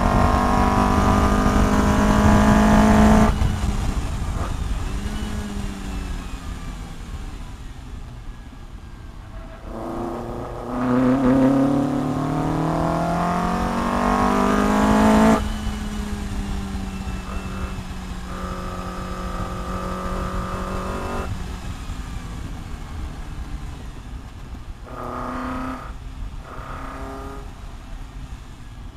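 Open-top sports car's engine heard from the cockpit: it runs hard until about three seconds in, then lifts off with falling revs. It pulls hard again with rising revs from about ten seconds in, lifts off near fifteen seconds, and near the end gives a few short throttle blips. A steady low rumble of wind runs underneath.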